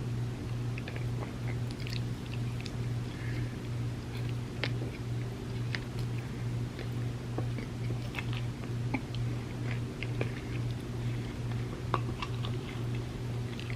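Close-miked chewing of a soft cookie cup layered with chocolate wafers: wet mouth sounds with scattered small crunches and clicks, over a steady low hum.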